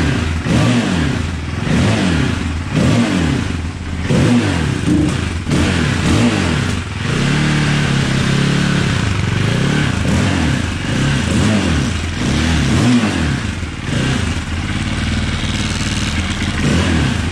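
KTM LC4 620's single-cylinder four-stroke engine running through its factory SuperTrap exhaust, on its first run after a restoration. The throttle is blipped over and over, so the revs rise and fall every second or so, with a steadier stretch about halfway.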